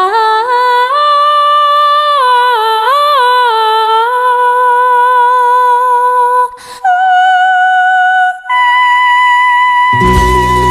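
A woman's voice sings a wordless melody alone, sliding between long held notes, with two brief breaks. Near the end the full band comes back in with a deep bass.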